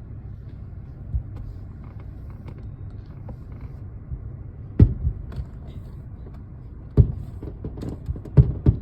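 Distant aerial fireworks shells bursting: a handful of sharp booms over a low steady rumble, the loudest about five and seven seconds in and a quick pair near the end.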